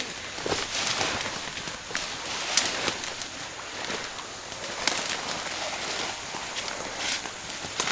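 Leaves and branches rustling, with twigs crackling, as someone pushes through thick undergrowth on foot; the noises come irregularly.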